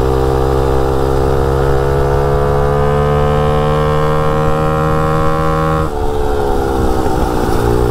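250cc dirt bike engine on a Motovox mini bike under way, its note climbing steadily for about six seconds, then dropping suddenly. The rider judges the bike still geared too low.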